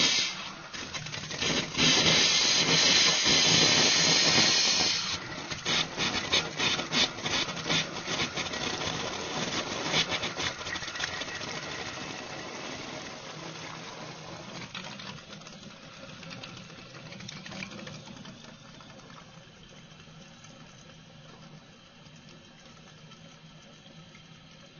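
A faucet with poor water flow, air in the line: it hisses hard for a few seconds, then spits and sputters irregularly, and settles into a weaker, steadily fading flow.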